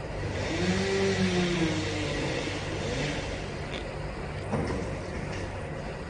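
An engine revs up and drops back over about a second and a half early on, then gives a quick short rev about halfway through, over a steady low hum.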